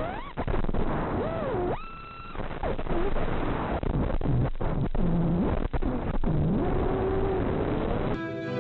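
FPV quadcopter's brushless motors and propellers whining, the pitch swooping up and down with the throttle, over a steady rush of air. The sound is muffled, with no high end.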